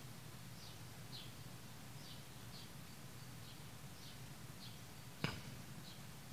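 A small bird chirping faintly, short falling chirps about twice a second, over a low steady hum. One sharp click about five seconds in.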